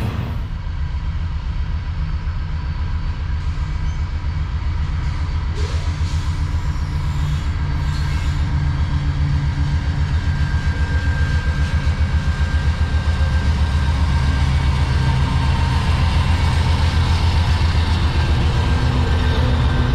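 Diesel freight locomotive engine running with a deep, steady throb, growing gradually louder.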